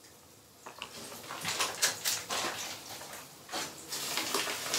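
Plastic bags and the shipping box's insulated liner rustling and crinkling as hands rummage through the packing, starting about a second in as a busy run of irregular crackles and scrapes.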